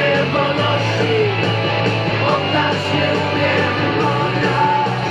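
Rock-style music with guitar and a steady beat.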